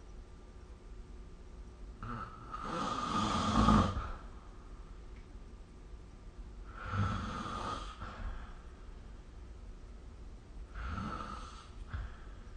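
A sleeping person snoring: three snores about four seconds apart, one with each breath, the first the longest and loudest.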